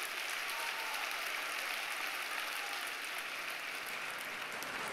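Large crowd of several thousand applauding, a steady wash of clapping that holds through the pause.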